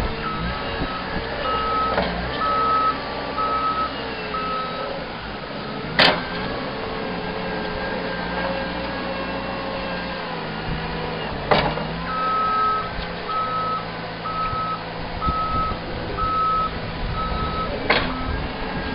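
Caterpillar 257B skid steer's diesel engine running steadily while its backup alarm beeps about one and a half times a second, in two spells: near the start and again from about twelve seconds in. Four sharp knocks break through, the loudest about six and eleven seconds in.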